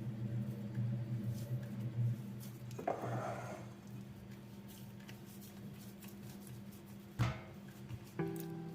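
Kitchen work: a short rustle about three seconds in and a sharp knock near the end, over a steady low hum. Music begins right at the end.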